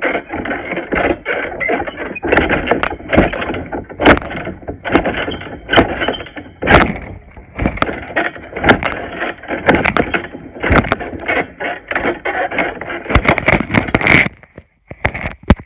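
Loud rustling and rubbing of a phone being jostled against clothing and bodies on a bouncing trampoline, with frequent sharp clicks and knocks.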